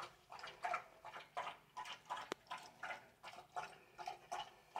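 Dog lapping water from a bowl, a faint, even run of laps about three a second, with one sharp click midway.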